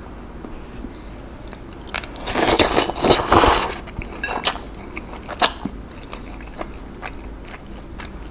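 A person slurping spicy Korean fire noodles in a loud stretch about two seconds in, lasting nearly two seconds. This is followed by wet chewing with a few sharp lip-smacking clicks.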